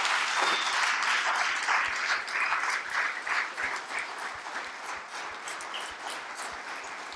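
Audience applauding, loud at first and gradually dying down.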